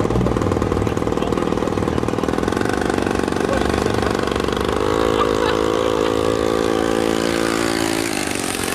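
An engine running close by, its note rising to a steady, higher pitch about five seconds in and falling away shortly before the end.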